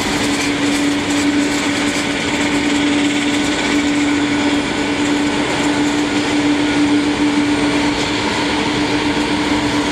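Bombardier Dash 8-400's twin Pratt & Whitney PW150A turboprop engines running at taxi power, a steady drone with one even, held tone over a constant rush of noise.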